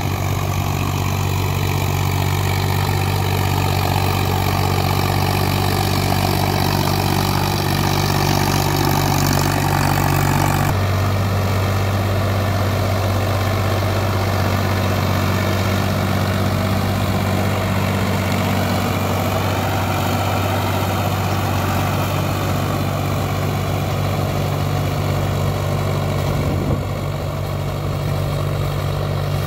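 Sonalika DI-47 RX tractor's diesel engine running steadily while it pulls a rotavator through weeds and soil. The engine note shifts abruptly about ten seconds in.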